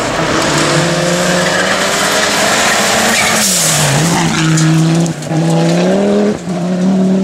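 Rally car engine at high revs on a gravel stage, the note held high, sagging about four seconds in, then climbing again with brief breaks for gear changes. A burst of gravel-and-tyre hiss comes about three and a half seconds in.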